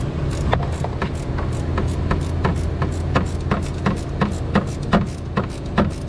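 Ratchet wrench clicking, a few sharp, irregular clicks a second, as a battery ground cable's terminal nut is run down onto a stud on the engine block. A steady low hum runs underneath.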